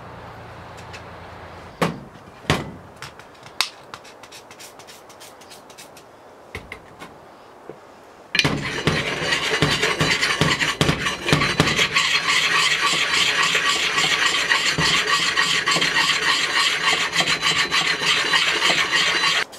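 A round axe sharpening stone (puck) scrubbed back and forth by hand over the rusty steel head of a Collins double-bit axe, cleaning off the rust: a loud, steady rasping that starts about eight seconds in and cuts off suddenly. Before it come a few light knocks.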